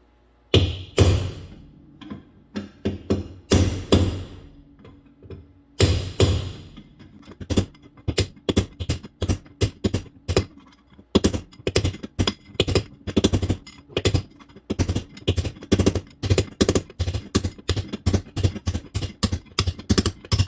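Hammer driving a steel punch against the inner pinion bearing race in a 2005 Chevy Astro van's rear differential housing, knocking the race out of its bore. A few spaced, ringing blows come first, then from about six seconds in a steady run of quick strikes, about three a second.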